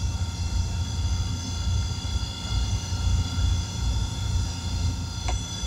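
A running machine gives a steady low rumble with a constant whine above it. There is a short sharp sound about five seconds in.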